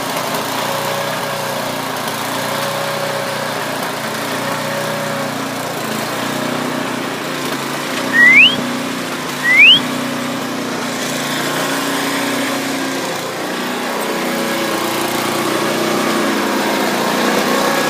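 A small engine running steadily. About eight and nine and a half seconds in come two short, loud rising whistles.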